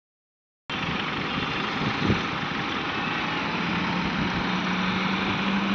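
Heavy diesel engine running steadily at low revs, with a steady hum coming in about four seconds in.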